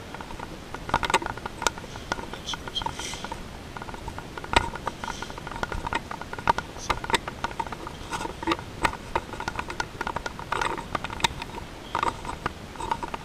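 Camera handling noise: irregular sharp clicks and rattles from a carried camera and its mount jostling at walking pace.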